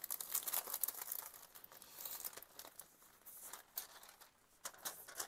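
Crinkling and rustling of a pack of parchment-paper hydro sheets being handled: a run of irregular crackles with a short lull about four seconds in.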